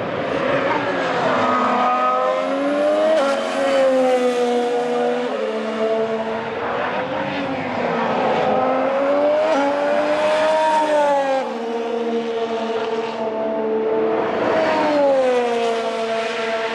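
Honda RA619H 1.6-litre turbocharged V6 of a 2019 Formula 1 car running at high revs, its pitch rising and falling several times, with stretches held at a steady pitch in between.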